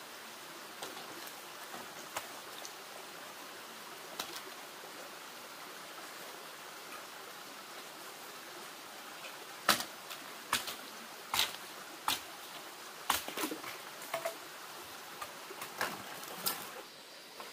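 Steady background hiss, then from about halfway a run of a dozen or so irregular sharp knocks and taps. Near the end a cricket begins a high, steady chirr.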